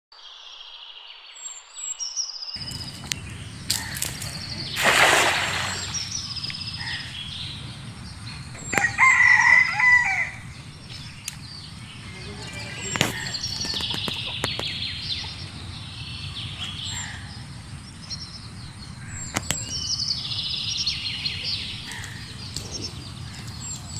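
A cast net slaps onto a pond with a brief splash about five seconds in, over steady birdsong. A rooster crows loudly about nine seconds in.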